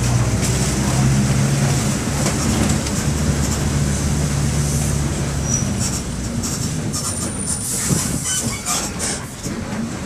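Mercedes-Benz OF-1722M bus's OM-924 LA four-cylinder inline diesel running under way, heard from on board. There is a steady low drone that weakens about six seconds in, with clicks and rattles and a few brief high squeaks near the end.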